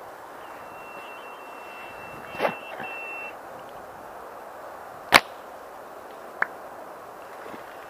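A single sharp crack of a bolt-action airsoft sniper rifle firing about five seconds in, the loudest sound here, with a smaller click about a second later. Earlier, a steady high beep lasts for about three seconds with a short knock partway through it, over a steady background hiss.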